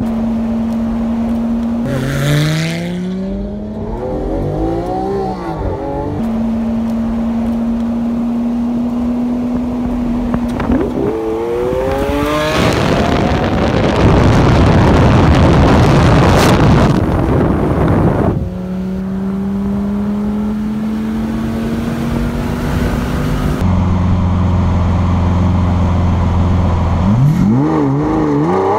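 Lamborghini supercar engine running at steady revs, then revving up with rising pitch several times as it accelerates through the gears. In the middle comes a long, loud stretch of engine and rushing wind noise at high speed.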